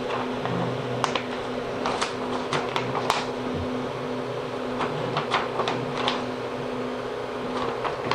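Steady hum of a switched-on Steadytech Mini 3D printer, with a scattering of light, irregular clicks and scrapes from hand adjustment of the bed levelling.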